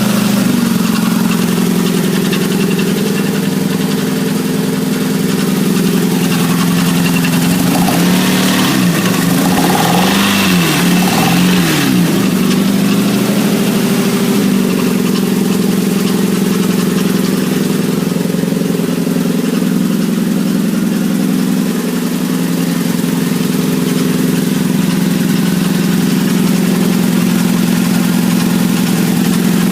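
A 1997 Nissan Altima's 2.4-litre four-cylinder engine running with a rattle. Its speed rises and falls briefly around ten seconds in, then it settles back to a steady idle.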